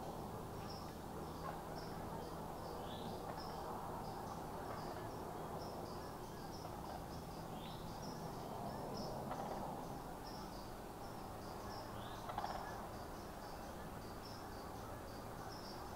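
Insects chirping in a steady pulsing rhythm, with a short higher call returning every four or five seconds, over a low steady background hiss. A single brief tap sounds about three-quarters of the way through.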